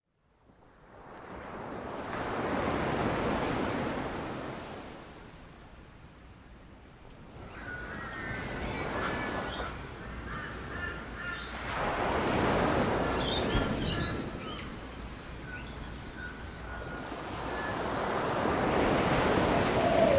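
Ocean waves breaking and washing up a beach, fading in and then swelling and ebbing three times. Birds chirp and call over the surf from about seven seconds in.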